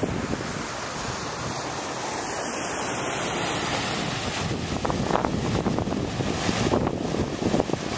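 Wind buffeting the microphone in a steady rush. From about halfway, an SUV drives through deep floodwater close by, its tyres throwing up splashes in uneven surges.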